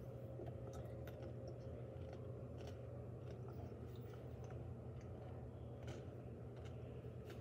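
A person chewing crisp cucumber slices, with scattered small crunching clicks, over a steady low hum.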